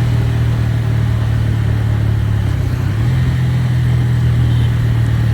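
Motorcycle engine running at a steady cruising speed under wind noise. The engine note dips briefly and picks back up about three seconds in.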